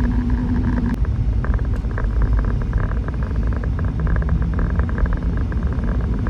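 Car driving, heard from inside the cabin: a steady low road and engine rumble, with a steady hum that stops about a second in.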